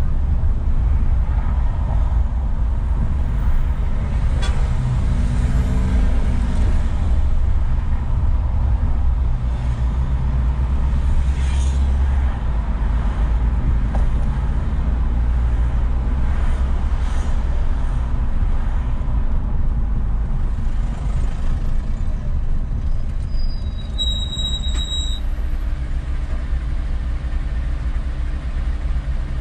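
Steady low rumble of a car driving in city traffic, engine and road noise with surrounding vehicles. A brief high-pitched squeal comes about 24 seconds in.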